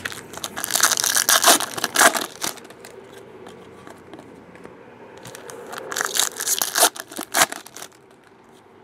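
Trading-card pack wrappers tearing open and crinkling, in two bursts of a couple of seconds each, about five seconds apart.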